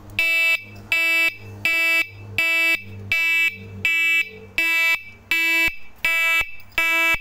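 Electric horn beeping in a steady on-off pattern, about ten short identical blasts at roughly three every two seconds, chopped by a wired pulse/flasher module.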